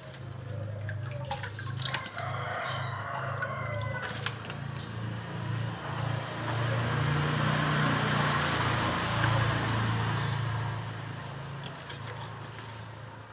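Pond water sloshing and splashing as a hand net is swept through a shallow concrete catfish pond, swelling louder in the middle, over a steady low hum.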